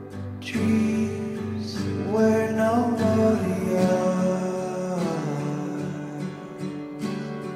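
Background music led by acoustic guitar, with a sung melody that rises about two seconds in and falls away near five seconds.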